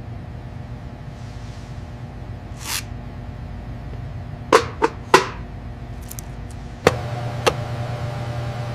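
A steady low hum, with a short whoosh nearly three seconds in, a quick run of three sharp clicks around the middle, and two more sharp clicks later, after which the hum gets a little louder.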